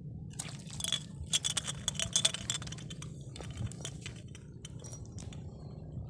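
Fishing tackle clicking and clinking, light and irregular: a dense run of small metallic clicks for about two seconds, then scattered ones that thin out.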